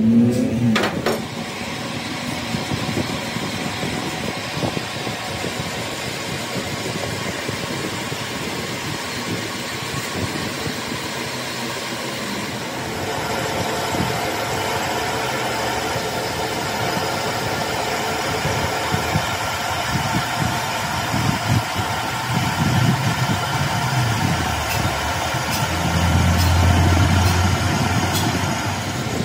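A machine running steadily, its note changing about halfway through.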